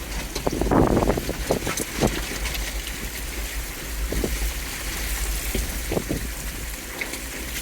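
Jeep Wrangler driving through flash-flood water on the road: a steady low rumble from the vehicle, with irregular surges of water splashing, the strongest about a second in.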